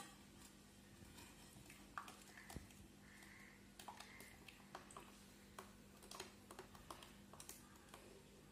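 Near silence: faint room tone with a steady low hum and scattered faint clicks.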